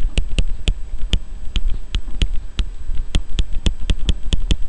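A pen stylus tapping and clicking on a drawing tablet while handwriting: irregular sharp clicks, about five a second.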